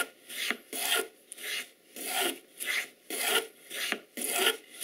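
Wooden grooving plane cutting a groove along the edge of a thin board, taking shavings in short back-and-forth strokes, about two a second, each a dry scrape of the blade through the wood.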